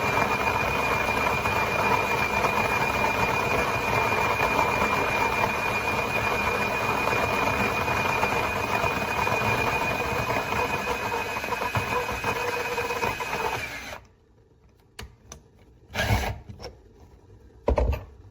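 A small motor running steadily with a high whine, stopping abruptly about fourteen seconds in, followed by a few short knocks.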